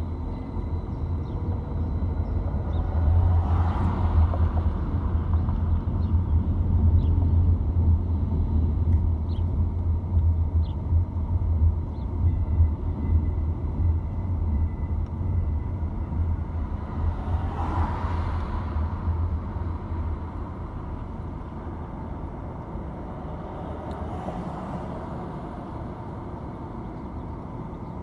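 Low rumble of road and engine noise inside a car driving slowly, easing off about two-thirds of the way through as the car comes to a stop. A few brief swells of noise rise and fade along the way.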